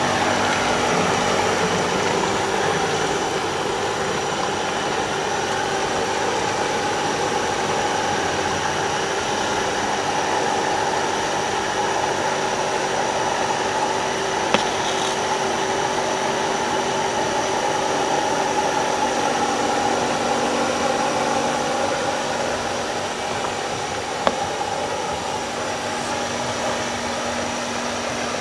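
Pool filter pump running steadily, a constant motor hum while the pool is vacuumed. Two short clicks, one about halfway and one near the end.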